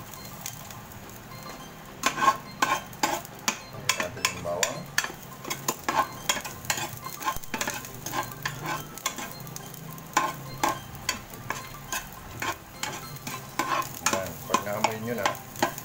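Chopped garlic frying in hot oil in a nonstick pan, with a steady sizzle. From about two seconds in, a spatula stirring it clicks and scrapes against the pan many times.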